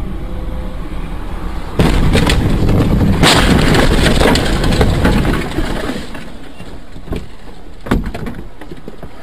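Dashcam audio of a vehicle crash: a sudden loud bang about two seconds in, then several seconds of loud rough crashing noise with a sharper hit about a second later. Two shorter knocks follow near the end.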